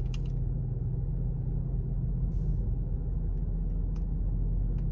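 Car idling, its steady low engine hum heard inside the cabin, with a couple of faint taps near the end as a fried cheese stick is tapped.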